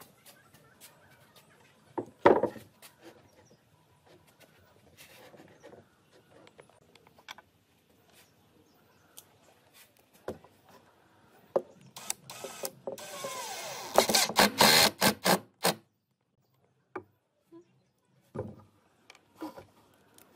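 A wooden frame set down on a table with a single knock about two seconds in. Later an 18-volt cordless impact driver spins up with a rising whine and drives a screw into pine for about three seconds, its hammering coming in a rapid run of sharp strokes.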